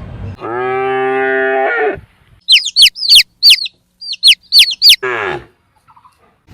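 Farm animal calls: one long, steady, low call. Then come two runs of quick high chirps, each falling in pitch, and a short falling call near the end.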